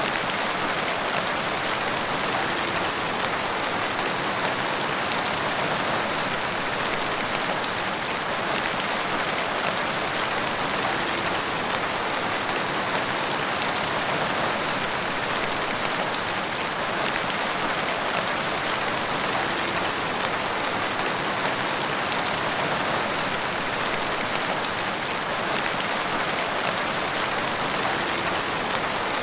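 Waterfall: falling water rushing and splashing in a steady, even roar that does not change.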